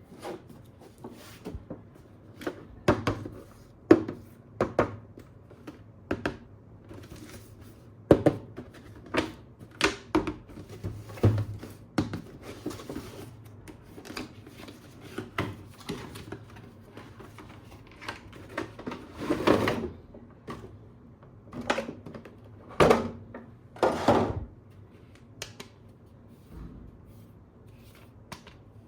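Irregular clicks, taps and knocks of hard plastic toys and packaging being handled, with a few longer rustling scrapes about two-thirds of the way through.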